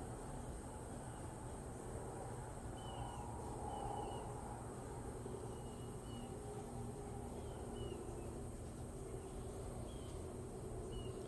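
Quiet background with a steady low hum and faint, short high chirps repeating irregularly, about one a second.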